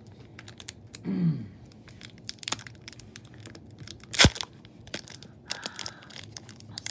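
Foil wrapper of a Pokémon card booster pack being torn open by hand and crinkling, with many small crackles and one sharp crack a little past four seconds in.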